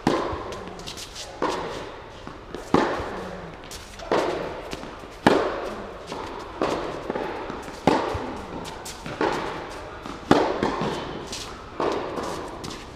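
Tennis rally: the ball is struck by rackets and bounces on the court, one sharp pop about every 1.3 seconds, each ringing with echo in a large indoor tennis hall.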